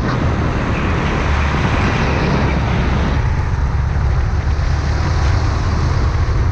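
Rental go-kart engine running at speed, recorded onboard, with a steady low drone and wind rushing over the microphone. The rushing noise drops away about three seconds in as the kart turns through a corner.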